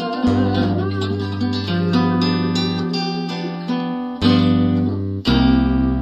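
Instrumental passage of a Russian romance song: acoustic guitar strumming chords over held bass notes, with two louder chords struck near the end.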